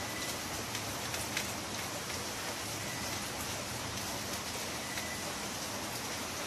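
A steady hiss with a few sharp crackles now and then from a small wood cooking fire burning under a pot.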